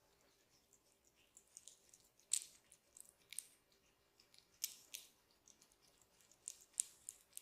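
A barber's fingers working over a man's head during a massage, rustling and crackling through hair and over skin in soft, irregular bursts, a few crisper crackles standing out.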